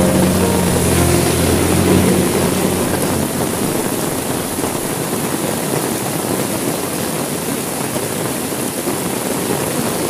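Heavy rain falling steadily on a window, an even hiss. A low, steady drone fades out over the first three seconds.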